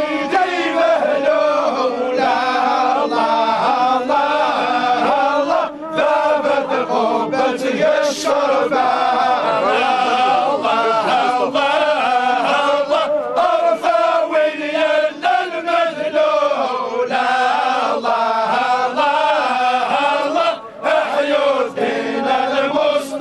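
A crowd of men chanting together in unison: a Muslim funeral chant sung as supplication. The chant runs on with short breaks for breath about six seconds in and near the end.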